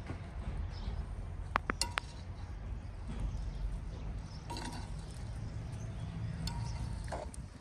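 Light clinks of utensils against cookware: a quick cluster about two seconds in and a few more later, over a low steady rumble.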